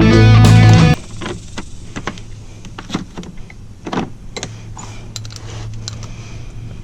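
Background music cuts off about a second in. Then scattered metallic clicks and knocks of hand tools and suspension bolts being handled, over a steady low hum.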